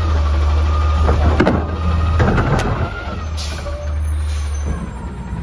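Front-loader garbage truck running with a steady engine drone and a hydraulic whine as its Curotto-Can cart-tipping arm dumps a trash cart. Several metal clanks come about one to two and a half seconds in.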